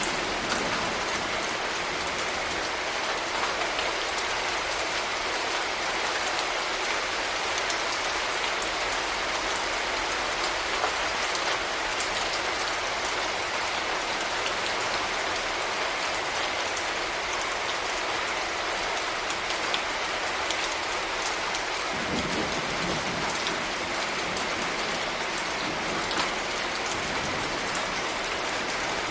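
Steady rain falling on hard urban surfaces, a continuous hiss dotted with the ticks of individual drops. A low rumble joins underneath about two-thirds of the way through.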